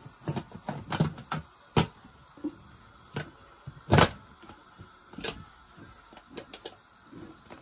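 Lid being fitted and locked onto an aluminium pressure cooker: a string of light metal clicks and knocks, with the loudest clank about four seconds in.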